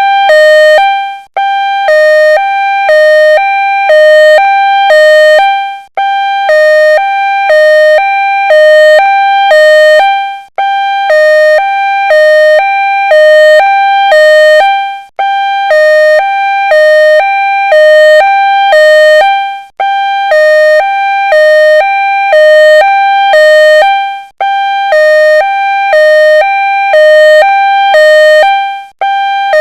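Two-tone ambulance siren alternating steadily between a high and a low tone. It cuts out for a split second about every four and a half seconds.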